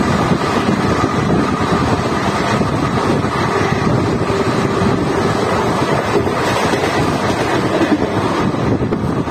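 ICF passenger coach running at speed: a steady rumble of wheels on rails, with wind buffeting the microphone.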